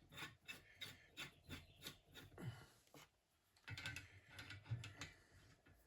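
Faint clicks and rubbing of metal fork parts being handled, with a short quiet gap about midway.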